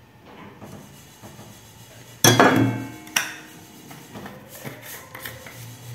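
Two sharp clanks of metal kitchenware about a second apart, each ringing briefly, from a small stainless-steel bowl of food colouring being handled on the counter, followed by a few softer knocks.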